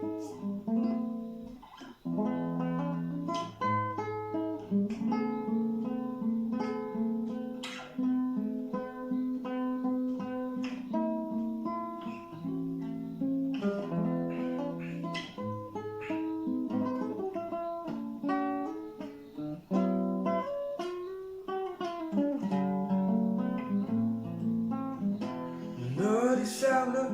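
Music: the instrumental introduction of a song, led by guitar playing plucked and strummed chords.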